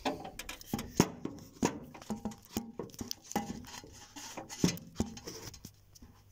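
Irregular clicks, taps and knocks of hands handling the plastic and metal parts inside a Xerox AltaLink copier's paper tray bay, with two sharper knocks, about a second in and a little past the middle.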